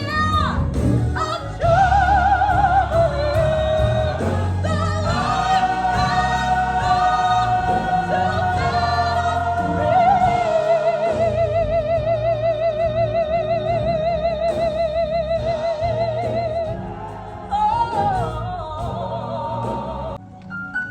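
Gospel singing with live band accompaniment: a powerful voice sings a melody, then holds one long note with a wide vibrato through the middle of the passage.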